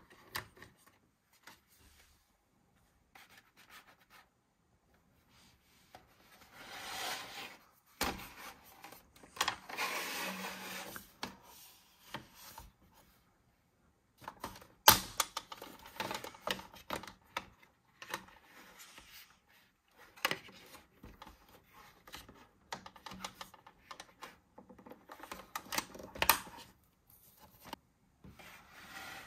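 Hard plastic toy pieces of a Bluey treehouse playset being handled and fitted together: stretches of rubbing and scraping, with sharp clicks as parts snap into place, the loudest about fifteen seconds in and again near the end.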